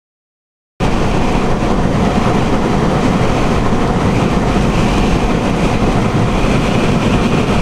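Steady rumble and rush of a vehicle driving, heard from inside the cabin, starting abruptly after a brief moment of silence.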